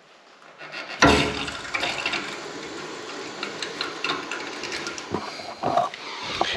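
Water rushing through a hose and fill valve into a central-heating system, topping up its pressure. It starts suddenly about a second in and runs on as a steady rush, with a few clicks.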